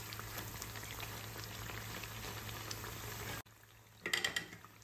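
Batter-coated banana slices (pazham pori) frying in hot oil in a pan: a steady sizzle with fine crackles that cuts off abruptly about three and a half seconds in, followed by a short faint sound near the end.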